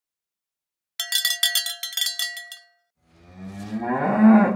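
A cowbell clanking in a quick run of strikes for about a second and a half, then a cow mooing once, a long low call that swells and fades.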